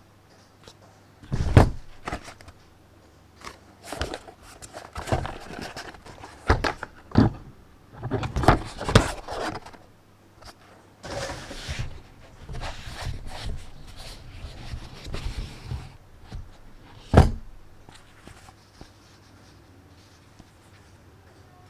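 Unboxing handling of a power bank and its cardboard packaging: scattered knocks and taps as the box and device are handled and set down, with stretches of rustling and sliding in the middle, and one sharp knock near the end.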